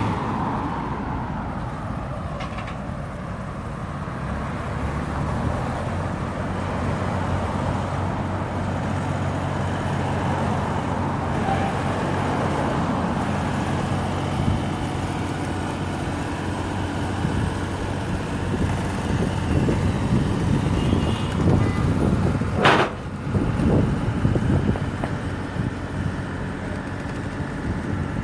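Road traffic passing close by: trucks and cars driving past with steady engine and tyre noise. A sharp knock cuts through about three-quarters of the way in.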